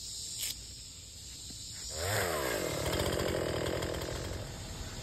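Gas chainsaw revving up about two seconds in, then running at high speed.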